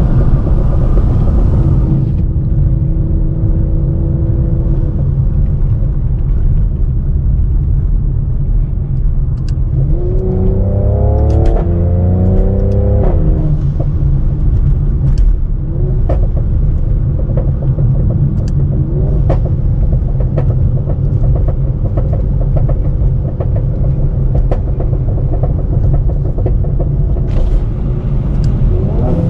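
Tuned Mercedes-AMG C43's twin-turbo V6 and exhaust while driving: a steady low rumble, then about ten seconds in the engine revs up hard through a gear change. After the gear change, a long run of crackles and pops comes from the exhaust as the engine comes off the throttle, and near the end the engine revs up briefly again.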